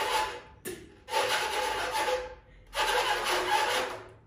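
Rhythmic whooshing sound effect: swells of airy noise about a second and a half long, one after another with short gaps between them.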